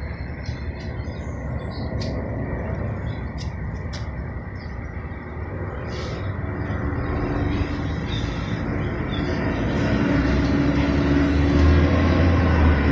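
Steady engine-like rumble with a low hum that grows louder over the second half, and a few faint short high ticks in the first half.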